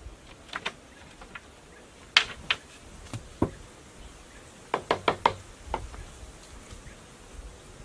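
A dozen or so short, sharp knocks and taps at irregular intervals, with a quick cluster of four or five about five seconds in.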